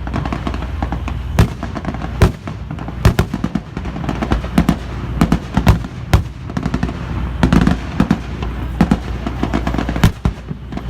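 Staged air-raid barrage: an irregular series of sharp bangs and pops from blank gunfire and pyrotechnic bursts, about one or two a second with some quick doubles, over a steady low hum.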